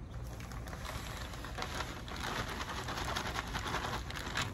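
A bag of vermiculite being tipped into a planter: the bag rustling and the loose vermiculite pattering down in a light, crackly stream.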